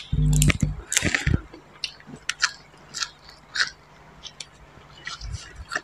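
Close-miked biting and chewing of raw cha-om shoots: a run of short crunches and clicks at irregular intervals. It is loudest in the first second and a half, where a louder low sound also comes about a quarter second in.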